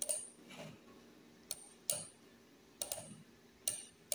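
About six short, sharp clicks of a computer mouse and keyboard, irregularly spaced, as text is copied and a web browser is opened.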